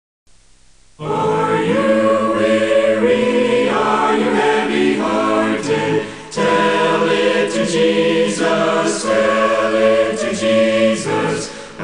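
Mennonite vocal group singing a hymn a cappella in harmony, starting about a second in, with a short breath between phrases about halfway through.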